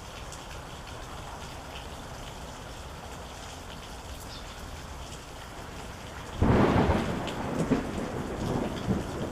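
Steady rain falling, then a sudden loud clap of thunder about six seconds in that goes on rumbling with further swells.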